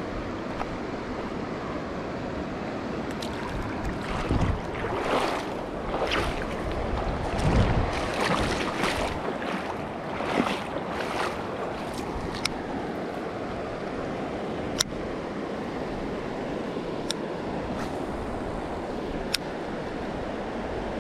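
Steady rush of a river running over rocky shallows, with several louder surges in the first half and a few sharp clicks in the second half.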